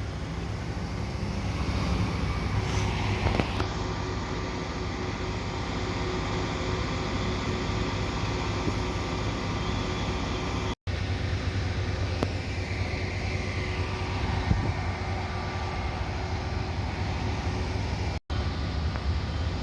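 Fire truck's diesel engine running steadily, a low, even rumble with a faint steady hum. The sound drops out twice for a split second.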